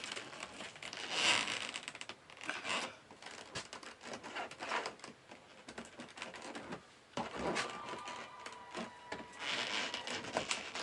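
Irregular rubbing and scraping with scattered clicks and knocks, from hands and tools working on materials. There is no steady drill run.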